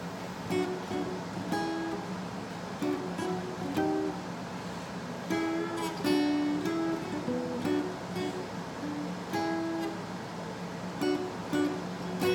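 Acoustic guitar picked note by note, playing a riff of two-note double stops on the G and B strings with single notes on the D string between them.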